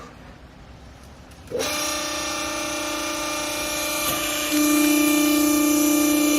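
Hydraulic baler's pump motor starting abruptly about a second and a half in and running with a steady whine, which gets louder about three seconds later.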